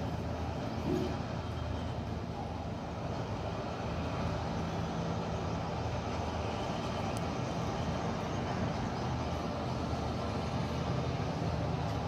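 Vishal 435 combine harvester's diesel engine and machinery running steadily as it harvests wheat.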